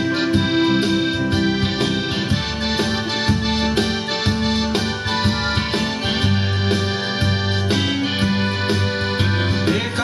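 Instrumental dance music with a steady beat and a sustained, reedy melody line.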